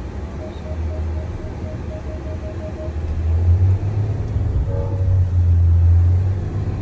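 Ineos Grenadier 4x4 driving up a steep dirt hill, heard from inside the cabin: a steady low engine and drivetrain rumble that swells about halfway through as it pulls up the slope. A quick run of short beeps, about five a second, sounds for the first few seconds.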